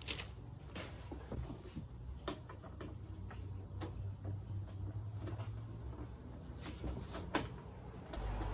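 Scattered light clicks and taps of a plastic animatronic hand and its wrist bracket being handled and fitted onto the arm, over a low steady hum.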